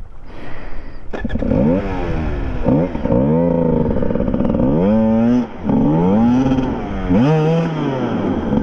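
Enduro dirt bike engine revved in short bursts, its pitch sweeping up and dropping back over and over, about once a second. It is the sound of a rider trying to power a wedged bike free.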